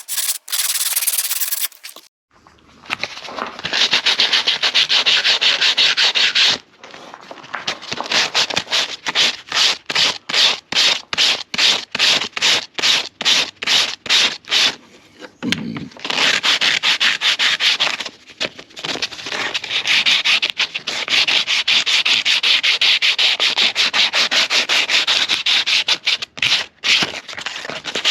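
Hand sanding of a wooden comb: rapid back-and-forth rubbing strokes of abrasive on wood, in long runs broken by a couple of short pauses, with slower, separate strokes in between.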